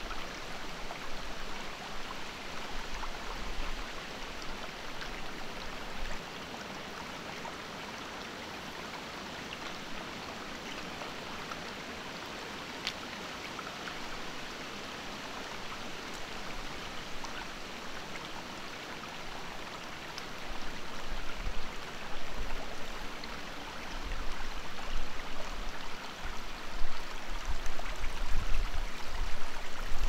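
Shallow rocky creek babbling steadily over stones. A low, uneven rumble grows louder over the last ten seconds.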